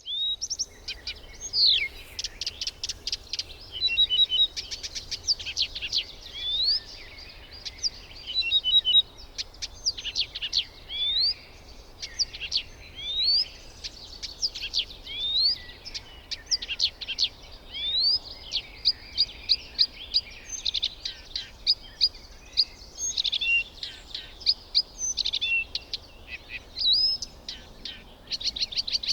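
Songbirds calling and chirping busily, several voices overlapping: fast runs of sharp notes, short rising whistles and brief trills, with no pause.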